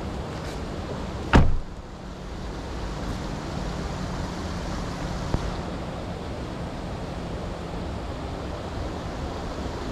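A car door slams shut about a second and a half in, over the steady rush of a shallow creek running over rocks.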